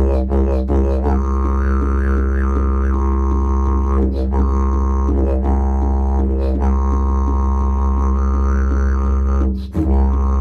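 Didgeridoo playing a low, continuous drone with shifting, vocal-like overtone sweeps, with a hand drum struck alongside. Near the end the drone briefly drops away and comes straight back.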